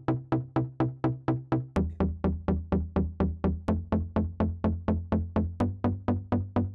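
Electronic background music: a quick, even run of short synth notes, about five a second, over a bass line that steps down about two seconds in.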